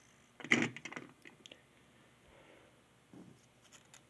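Hard plastic toy train pieces and packaging handled and set down on a tabletop: a clatter about half a second in, then a few light clicks and a soft knock.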